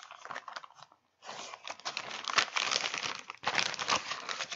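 Clear plastic Ziploc bag crinkling as it is handled, a dense crackling rustle that stops briefly about a second in and then goes on.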